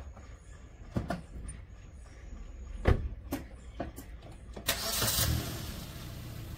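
A car door is shut with a loud thud about three seconds in, among a few lighter knocks and clicks. Near the end the car's engine cranks and starts with a brief burst of noise, then settles into a steady idle.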